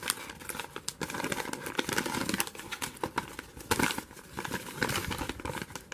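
A plastic LEGO Minifigures blind bag and its folded paper leaflet crinkling and rustling in the hands as the bag is handled and the leaflet is pulled out and unfolded, in a dense run of irregular crackles.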